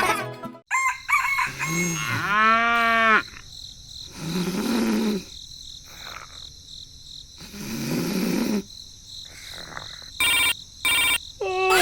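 Animal calls: one long pitched call that rises and falls about two seconds in, then rougher calls twice, and two short high tones near the end.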